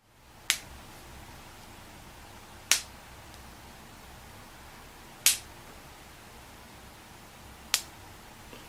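A person's joint cracking four times, sharp single pops evenly spaced about two and a half seconds apart.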